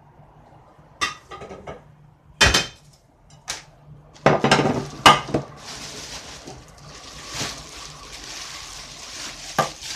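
A series of sharp knocks and clinks, the loudest about two and a half seconds in and a cluster around the middle, as glass baking dishes and bagged meat are set down on a wooden table. From about halfway on, plastic bags of raw meat crinkle and rustle as they are handled.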